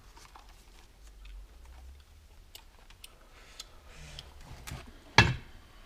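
Hands working over a motorcycle engine crankcase half as a gasket is fitted: scattered small clicks and taps of parts and fingers, with one sharp knock about five seconds in, the loudest sound.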